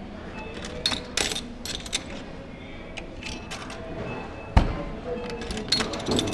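Arcade claw machine being played over background music: sharp clicks and clinks of its mechanism and coins, with one heavy thump about four and a half seconds in.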